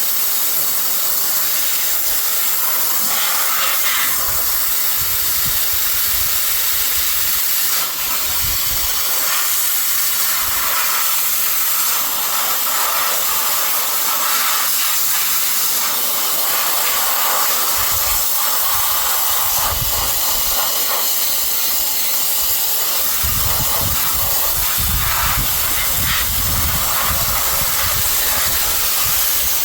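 Sandblaster running: a loud, steady hiss of compressed air and abrasive blasting from the nozzle to strip rust and scale off a truck frame. An irregular low rumble joins about two-thirds of the way through.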